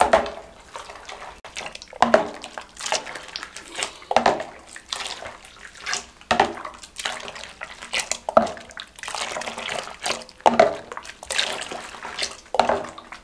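Thick milk mixture ladled up and poured back into an aluminium saucepan from a height, splashing, with the steel ladle knocking on the pot, about every two seconds. The milk is kept moving like this so it cools without forming a skin.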